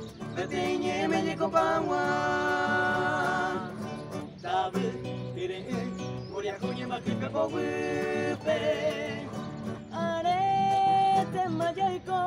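A male vocal trio singing in close harmony, holding long chords with vibrato, over a plucked Paraguayan harp and an acoustic guitar.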